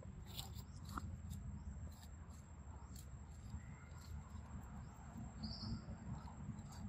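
Faint forest ambience: a steady high insect whine over a low rumble, with scattered small clicks and a short high chirp about five and a half seconds in.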